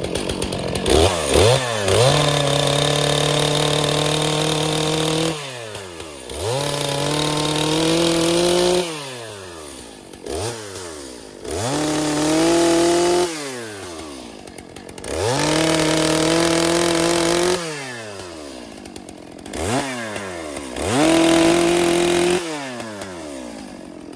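Chainsaw revving to full throttle and dropping back to idle five times, each high run held for a few seconds as it cuts through fallen logs for fence posts. The sound cuts off suddenly at the end.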